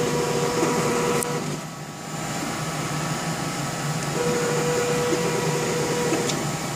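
Stepper motors of a delta 3D printer and its Z-mirroring linear axis whining as the carriages move, a steady mid-pitched tone over a steady hum. The whine stops about a second and a half in and starts again about four seconds in.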